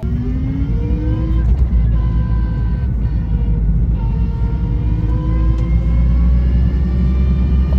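A motor vehicle driving and accelerating, its engine pitch rising and falling again several times over a heavy steady low rumble.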